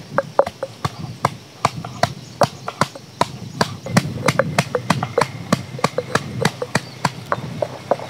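Stone pestle pounding ginger and garlic in a stone mortar: a rapid, fairly even run of sharp knocks, several a second, over a low rumble.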